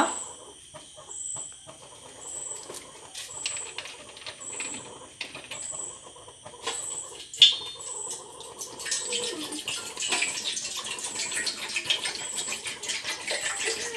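Water being poured into a cooking pot, the splashing growing louder from about nine seconds in, with a faint high chirp repeating about once a second.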